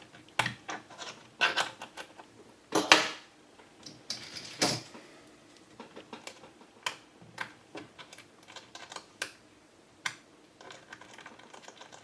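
Small screwdriver clicking and scraping in the screws of a laptop's screen bezel, with irregular light taps and knocks on the plastic case; the loudest knock comes about three seconds in.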